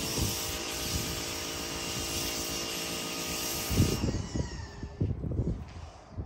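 A motor running steadily at one unchanging pitch, then stopping abruptly about four seconds in, with low thumps and rumble underneath.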